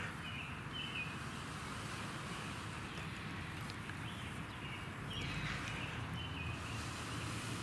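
Small birds chirping: a few short high calls a second or two apart, over a faint steady outdoor hiss.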